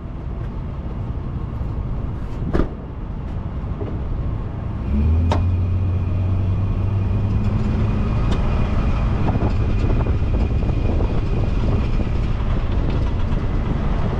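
Tow truck engine running at idle, a sharp click about two and a half seconds in, then about five seconds in the engine note rises and holds a steady low drone as the truck pulls away with a car on its wheel lift.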